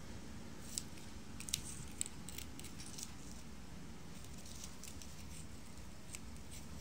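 Stiff black sugar palm (Arenga pinnata) fibres handled between fingers, giving faint crackles and a few sharp light ticks, mostly in the first three seconds, over a steady low hum.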